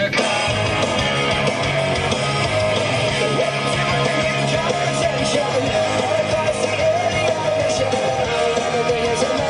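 Rock music with guitar, playing steadily.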